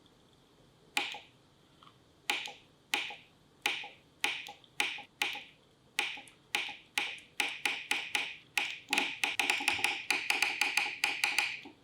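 Sprinkler valve's solenoid clicking as its two wires are touched to a power source, each click the valve releasing. The clicks start about a second in, spaced roughly half a second apart, then come faster until they are rapid near the end, each with a brief ringing tone.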